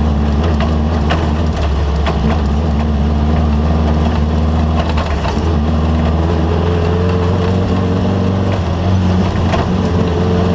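Off-road race vehicle's engine running steadily, its pitch shifting a little now and then, with scattered sharp knocks and rattles.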